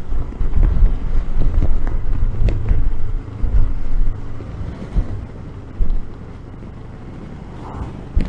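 Royal Enfield Himalayan's single-cylinder engine running as the bike is ridden along, with heavy, irregular wind rumble on the microphone for the first half that eases off after about four and a half seconds.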